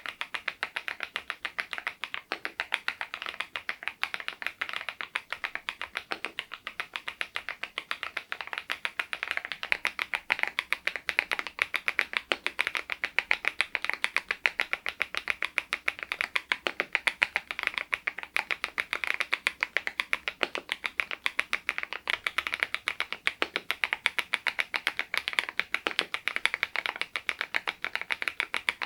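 Steady continuous typing on an SPM PL108W full-size mechanical keyboard fitted with Baby White switches: a dense, even run of soft clacky keystrokes, several a second.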